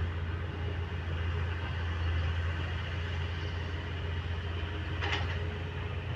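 Diesel engines of heavy earthmoving machinery, an excavator and a bulldozer, running with a steady low drone. A brief sharp sound stands out about five seconds in.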